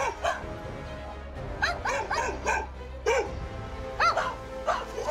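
A dog barks about ten short, sharp barks, several in quick succession in the middle, over background music. This is territorial barking aimed at a man, warning him to get out.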